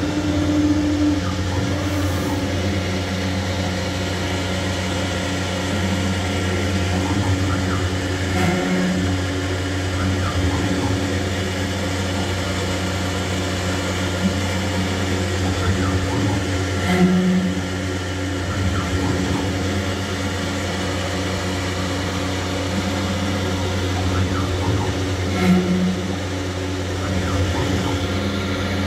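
Robland CNC drilling machine running with a steady hum, with a brief louder change about every eight or nine seconds.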